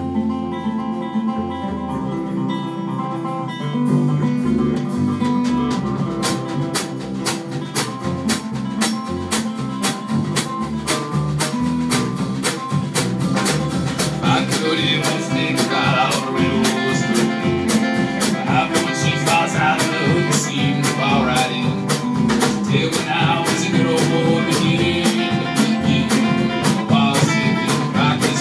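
A live acoustic folk-punk band playing a song: strummed acoustic guitars, upright bass and a drum kit, with the drums picking up to a steady driving beat about four seconds in. A man's singing voice comes in about halfway through.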